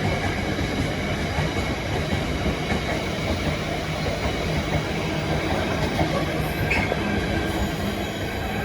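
Freight train wagons rolling slowly past: a steady rumble with the clatter of wheels and a few faint steady squealing tones from the wheels.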